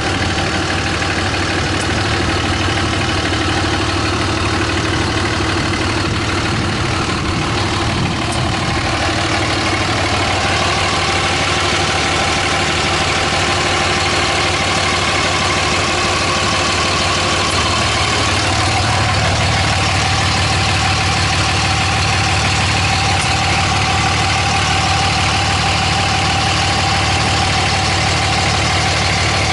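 2006 Dodge Ram 2500's 5.9L Cummins inline-six turbo diesel idling steadily, a little louder from about two-thirds of the way through.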